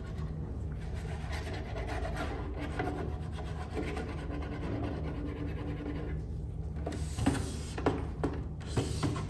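Wiping and rubbing on the plastic case of a Commodore 1541 floppy disk drive as it is cleaned of dust and dirt, with a few sharp knocks near the end.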